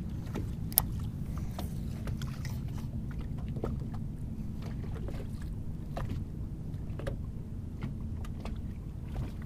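Steady low rumble of a small fishing boat sitting on open water, with wind and small waves against the hull and a faint low hum. Light clicks and taps are scattered through it, with one sharper click under a second in.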